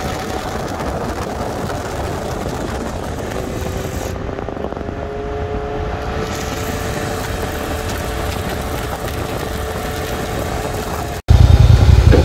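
UTV engine running steadily while driving, heard from the onboard camera with wind and tyre noise over it, the engine pitch rising slightly midway. About eleven seconds in the sound cuts and a much louder low rumble takes over.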